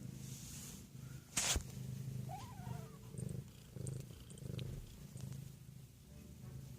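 A cat purring steadily, the purr swelling and fading about once a second with each breath. A single sharp knock comes about a second and a half in, and a faint short high squeak follows soon after.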